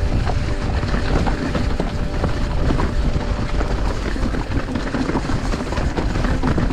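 Mountain bike riding down a muddy, leaf-covered trail, heard close up from the rider's camera: a steady rush of tyre and wind noise with frequent clatter and knocks from the bike over the rough ground.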